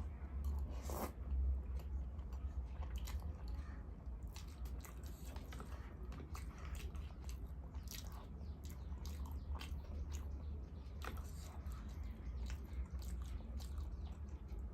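Close-miked eating: chewing and biting food, with frequent short wet mouth clicks and smacks, over a steady low hum.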